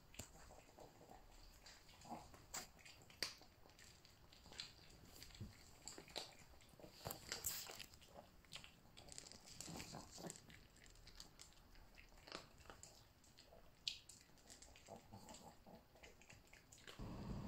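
A Pomeranian eating dry kibble: faint, irregular short crunches as it bites and chews the pieces.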